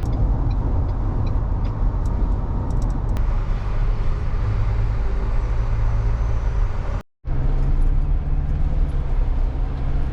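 Car driving at a steady speed, with a constant low rumble of engine and road noise. The sound drops out completely for a moment about seven seconds in.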